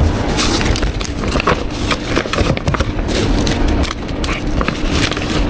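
Busy drink-making clatter behind a milk tea shop counter: many quick knocks and clinks of cups, utensils and ice, over a steady low machine hum.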